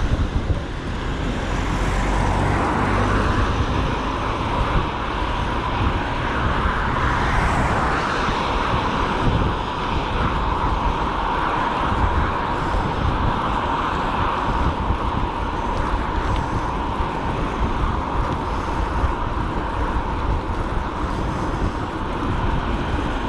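Riding noise on an electric bike, picked up by a bike-mounted action camera: wind buffeting the microphone and tyres rolling along a cycle path, with passing road traffic and a steady whine.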